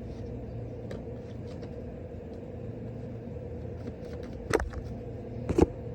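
Steady low hum, with two sharp taps about a second apart near the end.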